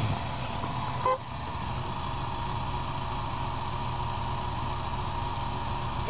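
Engines running steadily as a farm tractor tows a pickup truck stuck in a snow-filled ditch. A brief shout about a second in.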